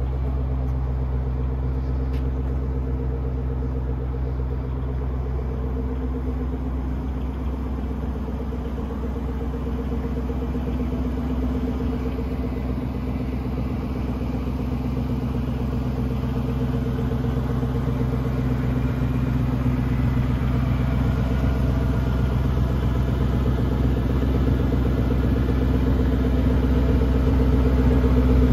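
2005 Ford GT's supercharged 5.4-litre V8 idling steadily, still warming up after a cold start. It grows a little louder toward the end.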